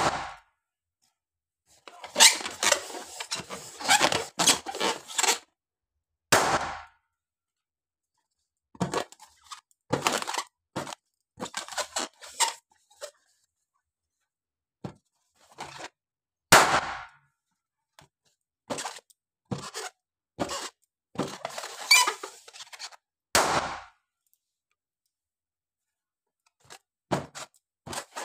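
Small latex water balloons popping one at a time, several sharp bangs a few seconds apart. Between the pops come the rubbery squeaks and rustling of balloons being squeezed in the hands and of the pile of deflated balloons.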